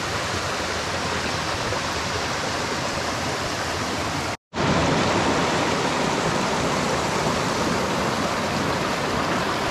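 Brook water rushing steadily. It cuts out for a moment about four and a half seconds in, then comes back slightly louder.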